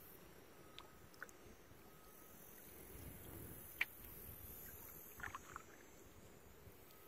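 Canoe moving quietly on calm water: a faint low rumble of water and air, with one sharp knock a little over halfway through and a brief patter of small clicks and drips soon after.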